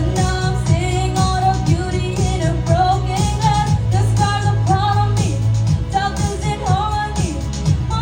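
Pop song with a sung vocal line over a steady beat.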